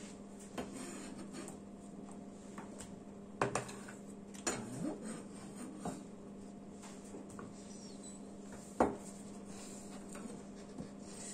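A kitchen knife cutting pear on a plastic cutting board: several scattered knocks of the blade on the board, the loudest late on, over a steady low hum.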